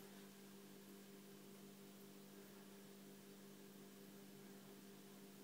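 Near silence: room tone with a faint steady hum and light hiss.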